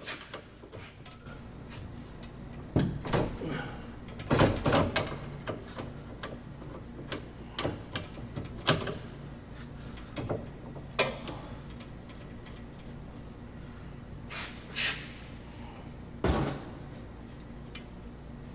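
Scattered metal clinks and knocks of a wrench working the old transmission cooler line fittings loose, in irregular clusters with a louder knock near the end.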